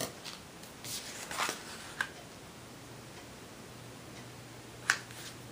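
White cardstock being handled and folded on a tabletop: soft paper rustles and a few light taps, with one sharper tap about five seconds in.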